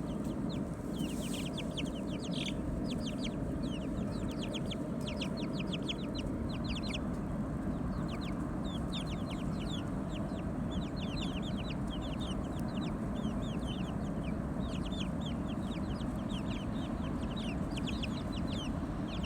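Chickens chirping and peeping in quick clusters of short, falling high notes, over a steady low background rumble.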